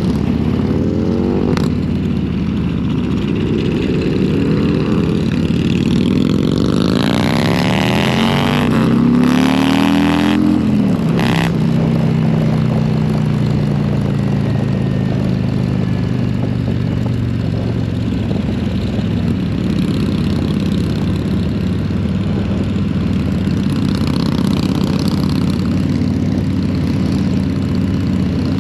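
Harley-Davidson Road King Special's V-twin engine under way, pulling up in pitch as it accelerates near the start and again until a sharp drop at a gear change about ten seconds in. It then settles into a steady, slowly easing cruise.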